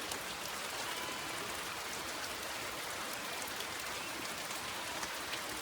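Steady rain falling, a constant hiss dotted with many small sharp drop ticks.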